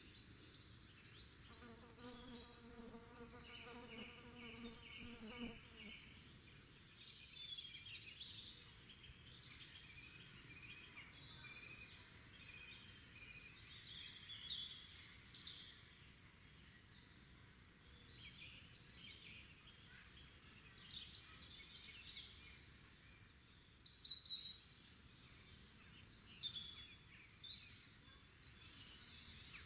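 Songbirds singing and chirping quietly over a faint steady hiss of background noise. An insect buzzes briefly, about two to five seconds in.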